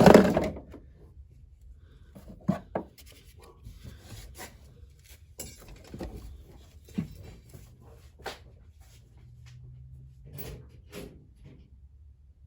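Hands working on small parts and wiring in a car's interior: scattered light clicks, knocks and rubs, with a thump at the start.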